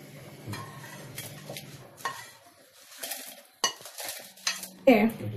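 Spoon scraping and tapping against a pan as crisp-roasted dried red chillies are tipped into a mixer-grinder jar, with scattered clinks. A low hum fades out about two seconds in.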